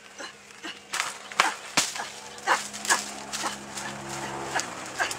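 Repeated short animal calls, sharp and falling in pitch, about two or three a second. A steady low hum sounds underneath through the middle.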